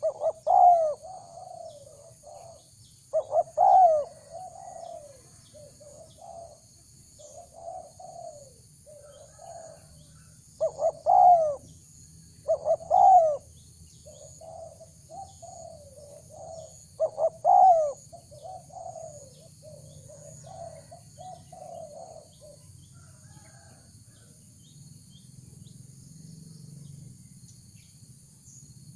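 Spotted doves cooing in repeated phrases, louder coos about five times with softer coos between, stopping a few seconds before the end. A steady high insect chirring runs underneath.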